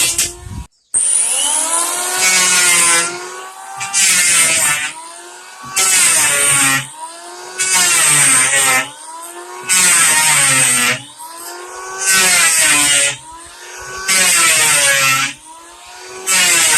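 Electric hand planer cutting wood in repeated passes, about one every two seconds. Each pass is a loud hiss of shaving over the motor's whine, which bends in pitch under the load and recovers between passes.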